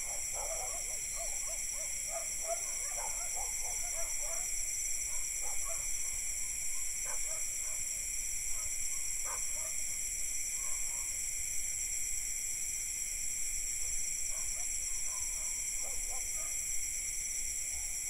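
Night insect chorus of crickets and cicadas, a steady high-pitched trilling in several layers, with distant dogs barking. The barks come thickest in the first few seconds and then only now and then.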